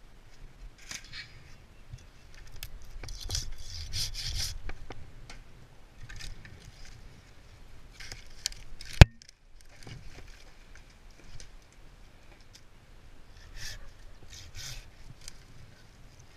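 Scattered scraping and rubbing noises, busiest about three to five seconds in, with one sharp click about nine seconds in.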